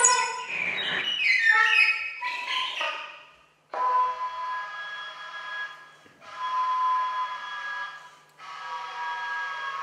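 Free-improvised saxophone played with extended techniques. It opens with a quick run of shifting pitches, stops briefly about a third of the way in, then sounds three held tones, each with several pitches at once, separated by short gaps. A faint low hum sits underneath.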